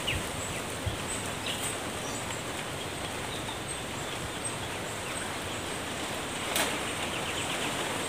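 Steady outdoor hiss of leaves and surroundings with a few faint, short bird chirps. About six and a half seconds in comes a brief rustle or snap of branches being handled, followed by a quick rattling trill.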